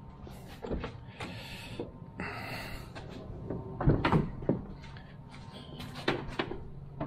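Car door being handled: clicks and clunks as the rear side door of a Chevrolet HHR is unlatched and swung open, the loudest clunks about four and six seconds in.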